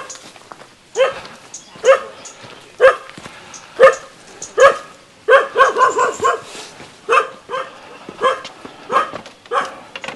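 A dog barking repeatedly, about once a second, with a quick run of several barks just past the middle.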